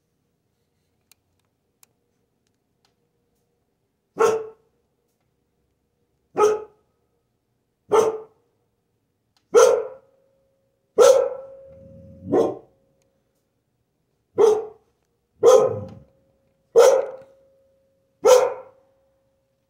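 Carolina dog giving single barks, ten of them about a second and a half apart starting about four seconds in, with a low rumbling sound between the fifth and sixth: alert barking at a hawk perched in a tree outside.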